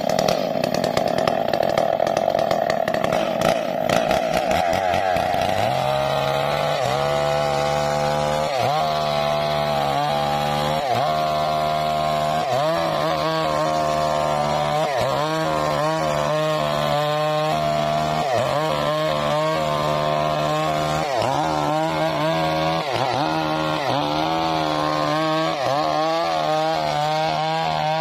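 Stihl MS 381 chainsaw running at high revs, then cutting into a mahogany log. About five seconds in its engine note drops and wavers under the load of the cut.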